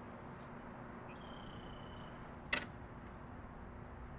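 A single sharp click from the yagi TV antenna's parts as it is handled, about two and a half seconds in, over a steady low hiss of outdoor background noise.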